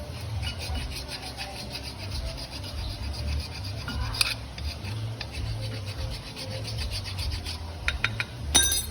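Hand file rasping in steady back-and-forth strokes across the edge of a brake pad's friction material, chamfering it so it stops catching on the lip of the brake disc, the cause of the scraping brake noise. A single sharp knock comes near the end.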